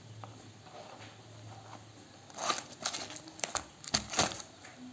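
Package being cut open with a cutter knife: a quiet start, then from about halfway a run of sharp scrapes and clicks as the blade works through the packaging.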